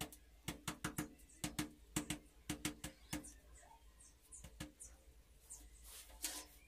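Quick sharp taps on a ceramic wall tile, in clusters of two or three with a short ringing note, as the tile is knocked into its mortar bed. The tapping stops about three seconds in, and a brief scrape follows near the end.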